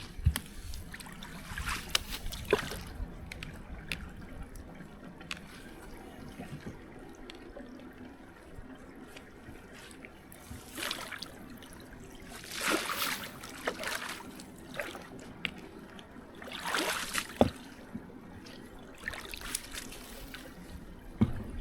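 Water trickling and running through a flooded roadside drain, with a few louder splashing or rushing swells and scattered small clicks.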